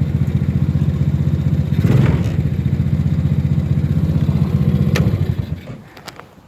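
A small engine running with a fast, even beat. It swells briefly about two seconds in, then dies away about five and a half seconds in.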